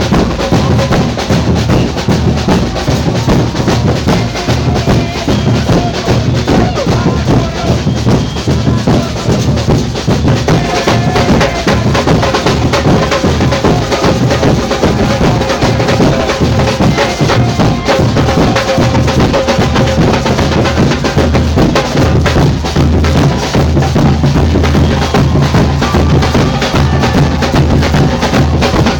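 Samba percussion band playing a fast, steady groove: dense drumming and wood-block-like clicks over deep bass drums.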